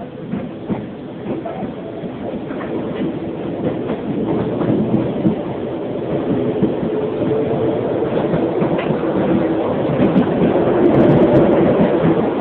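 Keisei 3300-series electric train running, heard aboard: the Mitsubishi MB-3097C traction motors and WN-drive gears whine as the train accelerates, the tone creeping up and the sound growing louder, with wheels clicking over rail joints.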